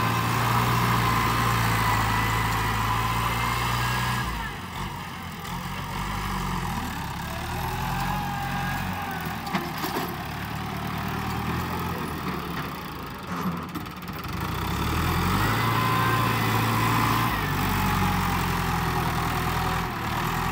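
New Holland TS90 tractor's diesel engine running while working the soil heaps. It is louder for the first few seconds and again in the last few, and fainter in between.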